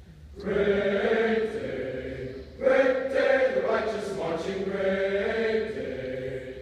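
Voices singing a slow melody in long held notes, starting about half a second in, with a brief breath break a little before three seconds and a louder re-entry after it.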